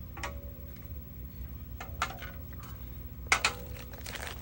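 Three light clicks and knocks as polymer pistol magazines are lifted out of a plastic gun case and set down on a table, the sharpest about three seconds in.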